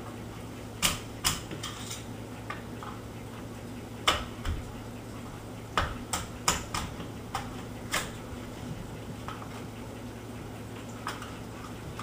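Irregular sharp metallic clicks and taps, about a dozen, as a pin pusher made from an old screwdriver is worked against the trigger-group pins in a Remington 1100 semi-automatic shotgun's receiver.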